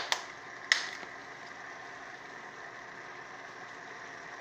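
A few sharp plastic clicks and knocks in the first second as a red-capped seasoning shaker is handled, then a steady kitchen hum under the stovetop cooking.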